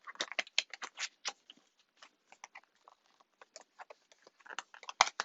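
Cosmetic packaging being handled, making rustling and small clicks: a dense run of crinkles and taps for about the first second and a half, sparser after, with one sharp click near the end.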